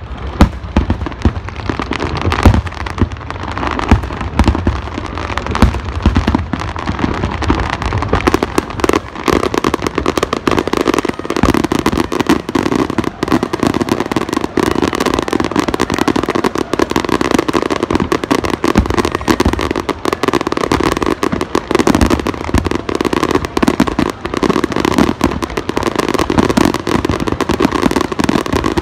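Aerial fireworks display: deep booming shell bursts for the first several seconds, then from about nine seconds in a dense, unbroken barrage of rapid bangs and crackle.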